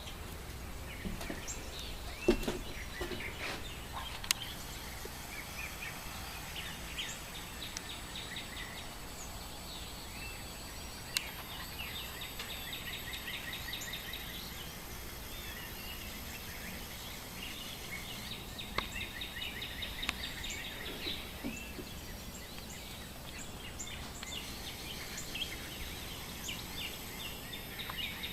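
Wild birds chirping and singing in short repeated trills over a steady outdoor hiss, with a few sharp ticks, the loudest about two seconds in.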